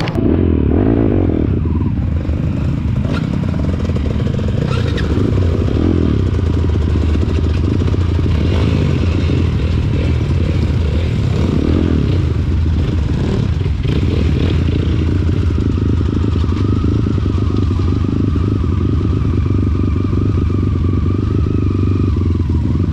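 Trail motorcycle engine running steadily while riding; the sound comes in suddenly at the start.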